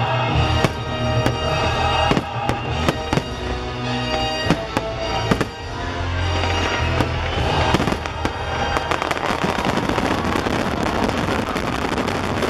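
Fireworks bursting over orchestral show music: repeated sharp bangs for the first several seconds, then, from about eight seconds in, a dense crackling and popping that swamps the fading music.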